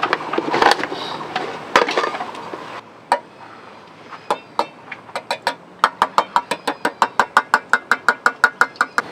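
A run of short, light clicks, each with a faint ring, starting sparse about three seconds in and quickening to a steady rhythm of about five a second. Before it come a couple of seconds of busier noise with a few sharp knocks.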